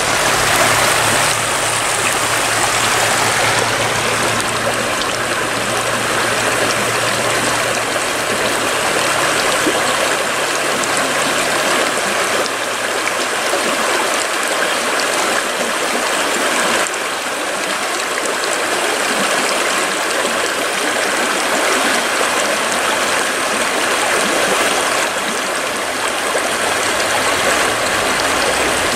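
Creek water running over rocks: a steady, loud rush of stream noise.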